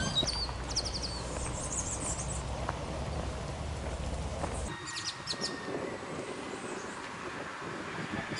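Outdoor ambience: birds chirping in short, quick high series, over a steady low rumble that cuts off abruptly about halfway through.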